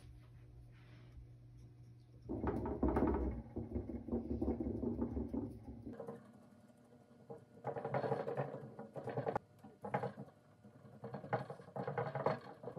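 Paintbrush stippling liquid patina onto a painted metal wire lampshade frame: three irregular bouts of dabbing and scratching on the wire, with short pauses between.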